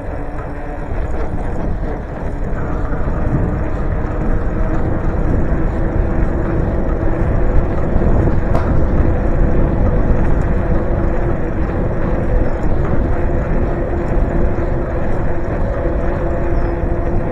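Wind buffeting the microphone and road noise while riding a bike, with a steady hum.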